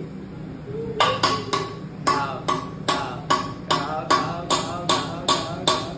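Hibachi chef's metal spatula and utensils clacked together in a steady rhythm. It starts about a second in, at about two and a half sharp, briefly ringing clacks a second.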